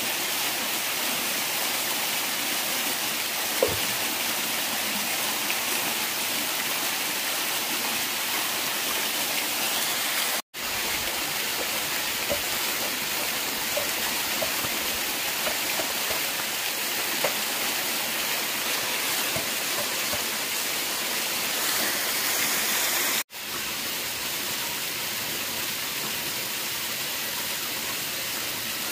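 Steady rushing noise of running water, with a few faint ticks. It cuts out for an instant twice, about ten seconds in and again near twenty-three seconds.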